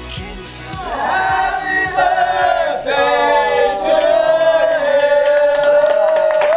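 A group of men's voices cheering in unison, rising about a second in and settling into one long held note, with hand claps near the end.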